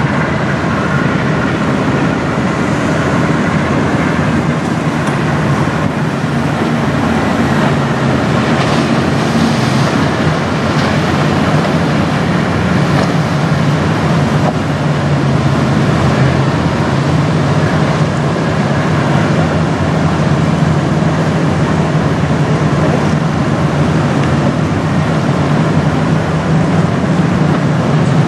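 Tugboat diesel engines droning steadily under way, a low even hum with rushing water and wind noise over it.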